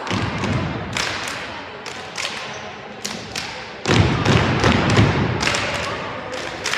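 Cheerleaders stomping on a hardwood gym floor and clapping, a string of sharp claps and thuds with the heaviest stomps about four seconds in.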